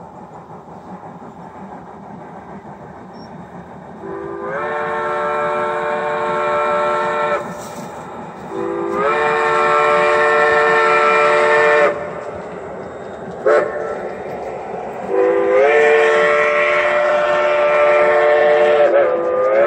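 Steam-style chime whistle from the onboard sound system of a battery-powered, radio-controlled G-scale steam locomotive, sounded long, long, short, long: the grade-crossing signal. Each long blast lasts about three seconds and opens with a small step up in pitch, over the steady running noise of the train on the track.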